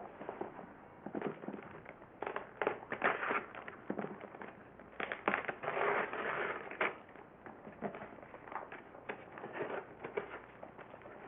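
Packing material crinkling and crackling as items are pulled out of a shipping box, with irregular snaps and a denser stretch of rustling about halfway through.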